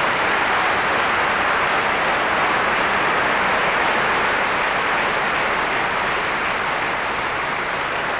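Large audience applauding, a dense even clapping that eases slightly toward the end.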